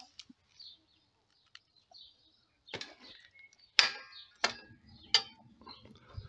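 Metal clicks and clanks from the steel latch and door of a wood-fired firebox being unlatched and swung open: four sharp clicks over about two and a half seconds, the loudest about four seconds in. A low steady hum follows after that.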